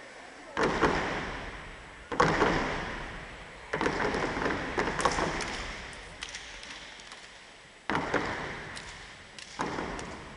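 Step team's stomps and hand claps striking in sharp accents, five times, each followed by crowd cheering that trails off and echoes in a large hall.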